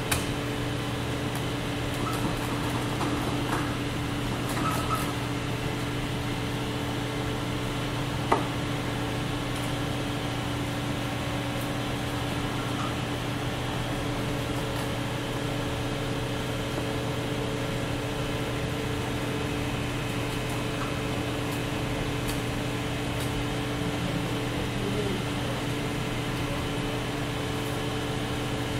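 Steady mechanical hum of room machinery: a constant low drone with a few fixed higher tones over it, and one sharp click about eight seconds in.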